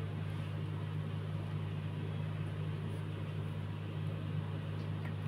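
Steady low hum that holds level throughout, with no clicks or stitching rhythm standing out.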